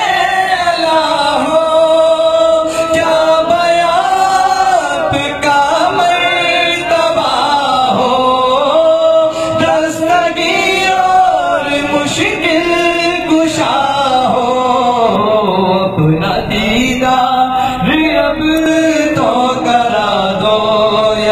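A man singing an Urdu naat in long, drawn-out melodic phrases, holding and bending notes.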